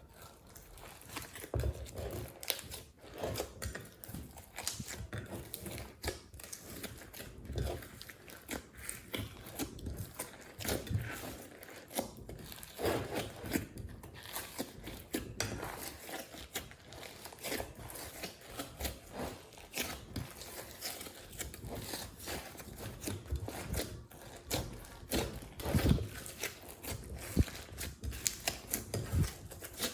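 Glossy slime being kneaded and stretched by hand, giving off irregular sticky clicks, crackles and squelches.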